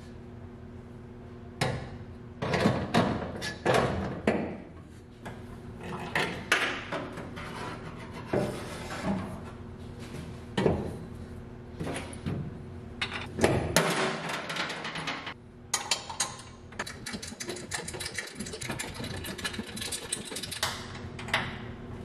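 Irregular metal clunks, taps and scrapes as a steering column is handled and fitted into its floor mount, over a steady low hum.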